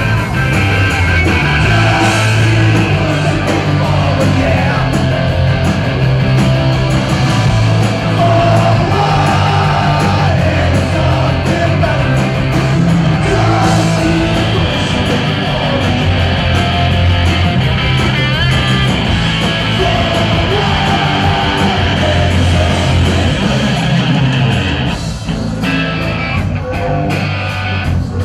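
A live rock band playing: electric guitar, bass guitar and keyboards, with a singer.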